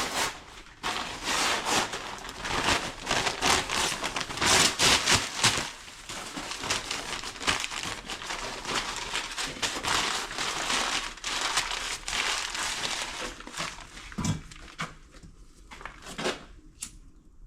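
Dense crackling and crumpling as a fire is lit in the firebox of a newly built brick Russian stove, thinning out about fourteen seconds in.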